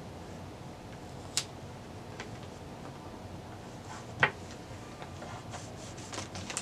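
Small objects being handled on a tabletop: two sharp little clicks, the second the loudest, a fainter tick between them, and light rustling near the end, over a steady faint room hum.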